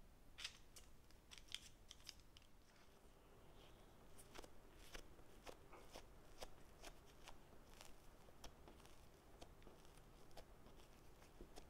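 Faint handling sounds of soft yeast dough being shaped by hand: irregular soft clicks and sticky ticks as fingers press and pinch the dough against a stone counter, with a light paper rustle as it comes off parchment near the start.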